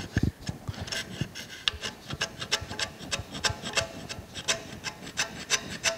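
Hand scraper held on end, scratching an oil groove into soft Turcite slideway liner on a machine saddle: short, sharp back-and-forth scraping strokes, about three a second.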